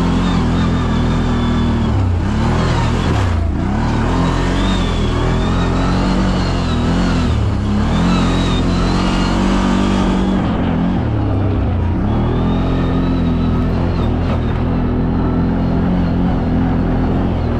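CFMoto CF 1000 ATV engine pulling up a hill trail, revving up and easing off again and again: its pitch drops and climbs back several times, then holds steady near the end.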